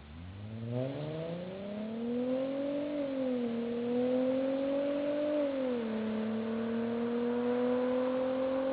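Mercedes-Benz C230 V6 with a resonator-deleted custom exhaust accelerating hard from low revs, its note rising and growing louder, with upshifts about three and five and a half seconds in, each followed by the revs climbing again.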